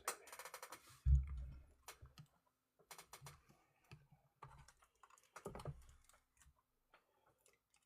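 Scattered clicks and taps of trading cards in hard plastic holders being handled and stood up for display, with a dull thump about a second in.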